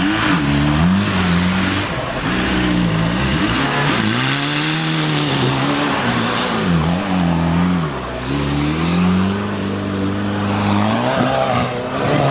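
Off-road 4x4's engine revving hard, its pitch rising and falling over and over, over a continuous rushing noise.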